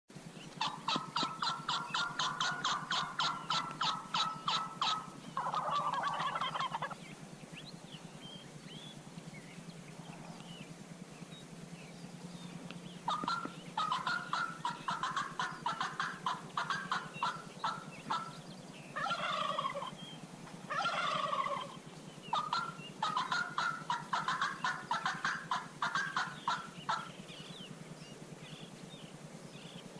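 Wild turkeys gobbling and calling: long runs of rapid, evenly spaced notes near the start and again through the second half, with two shorter falling calls between them.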